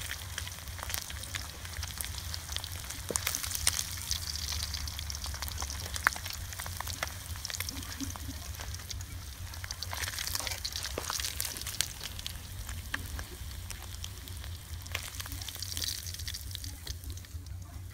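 Fish frying in hot oil: a steady sizzle scattered with many small crackling pops, over a low rumble.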